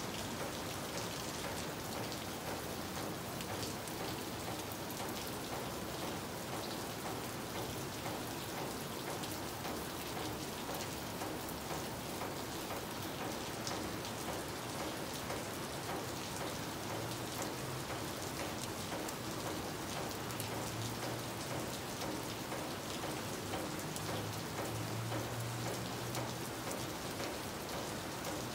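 Steady rain, with water dripping off the roof eave close by.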